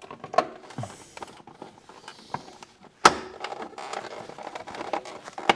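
Hand tools working on car suspension parts: irregular metallic clicks and knocks, with a sharp knock about three seconds in and another near the end.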